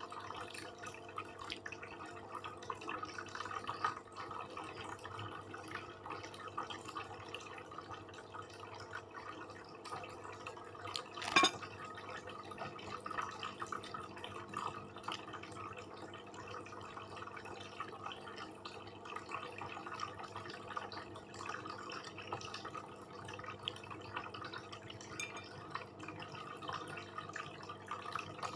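Close-miked eating: wet chewing and small mouth clicks, with one sharp click about eleven seconds in.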